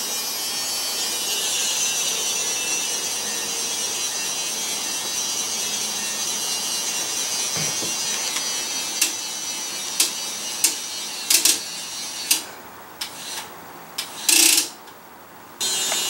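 Battery-powered toy crane's small geared electric motor whirring steadily as its winch lifts a bucket on the claw. Toward the end the motor stops and starts in short spurts, with a run of sharp clicks.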